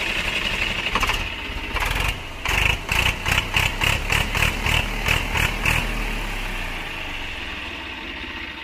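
Swaraj 855 tractor's three-cylinder diesel engine running just after being started, with a rhythmic pulsing about four times a second for a few seconds in the middle. Its sound then dies down gradually toward the end.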